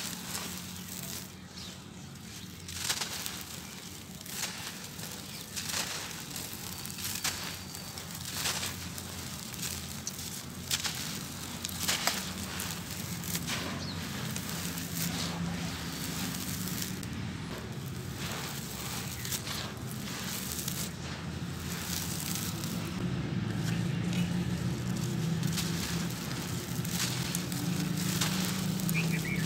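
Dry sand-cement lumps crumbled and crushed by hand: a gritty crunching with many sharp crackles as pieces break and the powder pours through the fingers.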